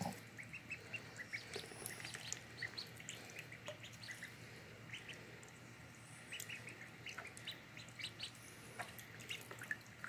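Five-day-old ducklings peeping, many short high chirps at irregular intervals from several birds at once.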